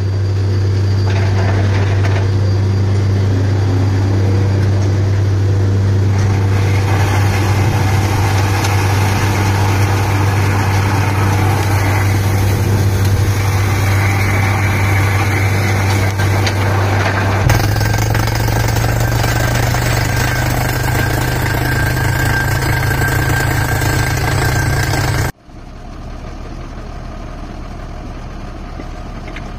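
Truck-mounted borewell drilling rig's engine running loud and steady with a deep hum; about two-thirds of the way through its pitch steps up a little. Near the end the sound drops suddenly to a quieter engine running steadily.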